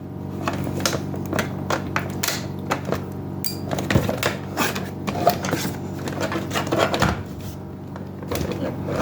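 Plastic housing of a Keurig K-Supreme coffee maker being worked apart by hand: irregular clicks, taps and creaks as the snap-fit side tabs are pushed in and the plastic panels release.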